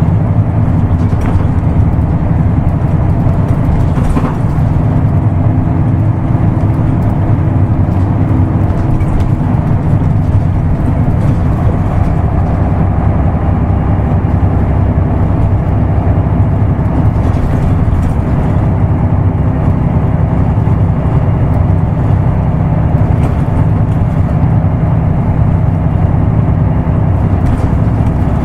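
Isuzu Erga Mio city bus's diesel engine running under way, heard from inside the bus, with a steady low drone; the engine note shifts about twelve seconds in.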